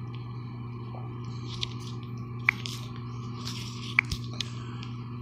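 A steady low hum with a few light ticks and two sharp clicks, about two and a half and four seconds in.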